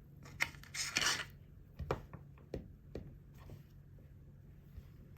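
Small metal watchmaking tools clicking and scraping against a mechanical watch movement while working at the cannon pinion: several sharp clicks and a brief scrape in the first three seconds or so, then only faint handling.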